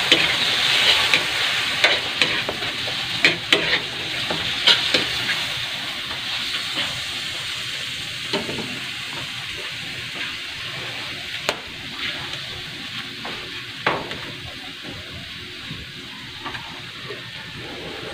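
Food frying and sizzling in a hot wok, loudest at first and slowly dying down, with a few sharp metal clinks of the ladle against the wok.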